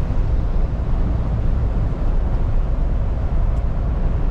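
Steady low rumble inside a MAN TGX lorry's cab cruising on a wet motorway: engine and tyre noise with road spray and wind.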